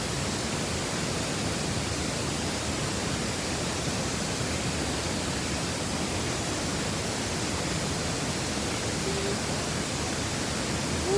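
Waterfall rushing, a steady, even roar of falling water with no change throughout.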